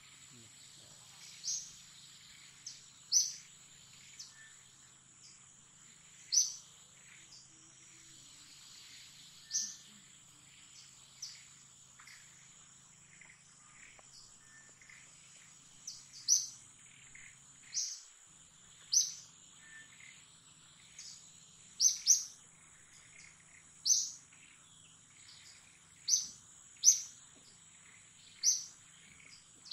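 A bird's short, sharp high-pitched chirps, one every second or two and sometimes in quick pairs, over a steady high insect drone.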